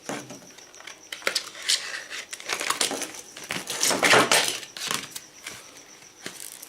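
Handling noises from a new wood file being picked up and looked over: light metallic clinks and knocks, with a few short scraping or rustling sounds.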